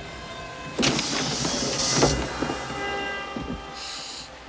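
A film sound effect: a sudden loud whooshing hiss about a second in, with a shorter high hiss near the end, over steady humming tones.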